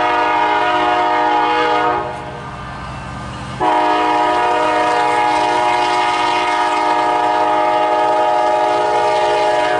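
Diesel locomotive's air horn sounding for a grade crossing as the train approaches. There is one blast of about two seconds, then a brief pause, then a long blast held for about six seconds.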